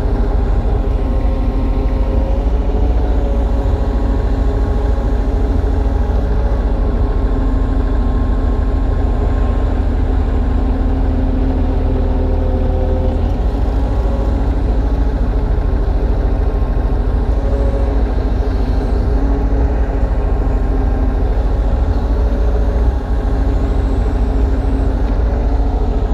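Kubota U35-3 mini excavator's diesel engine running steadily under hydraulic load while digging. Its pitch sags slightly and recovers several times as the arm and bucket work.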